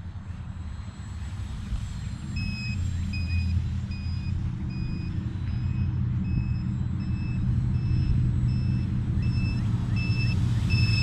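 A high electronic beep repeating steadily about one and a half times a second, starting a couple of seconds in, over a low rumble that slowly grows louder.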